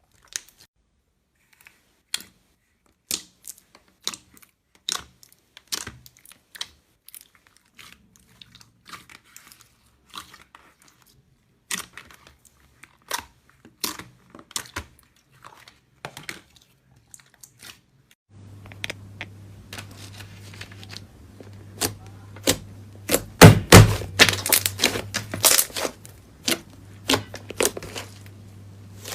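Slime being pressed and squeezed by hand, giving sharp clicking pops and crackles. About 18 seconds in, the sound changes to a low steady hum under denser, louder crunching and crackling.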